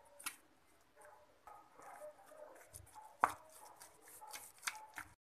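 A hand mixing thick maida-and-curd batter in a steel bowl: soft wet squelching with a few sharp knocks of fingers against the bowl, the loudest a little over three seconds in.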